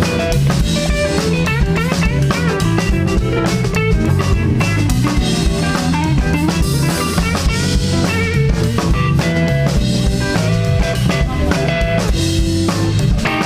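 Live rock band playing an instrumental passage: an electric guitar lead with bending notes over bass guitar and a drum kit keeping a steady beat.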